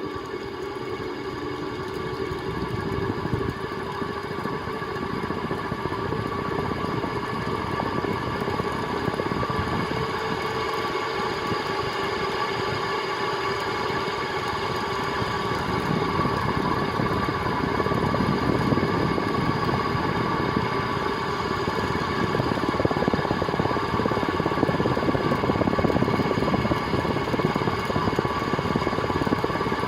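A 1979 SMC M48 metal-blade ceiling fan running with very bad bearings: a steady motor hum under a continuous clicking and clunking rattle, which the owner puts down to dirt, gunk or rust in the bearings. The noise grows louder over the first few seconds as the fan comes up to speed.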